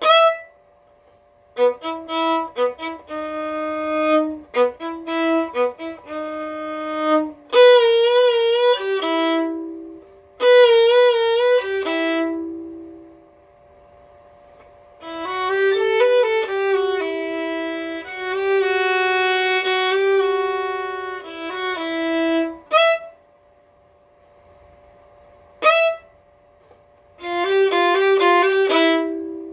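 Solo violin playing in phrases: a run of short detached notes, then notes with a wide, wobbling vibrato, then longer held notes, with single sharp accented notes standing alone between phrases.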